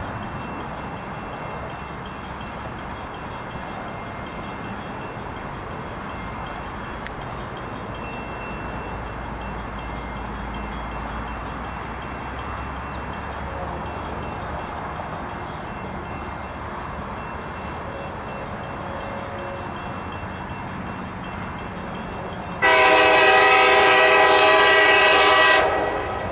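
Approaching GP40-3H diesel locomotive: a steady rumble, then one loud horn blast of several tones sounding together, starting about 23 seconds in and lasting about three seconds.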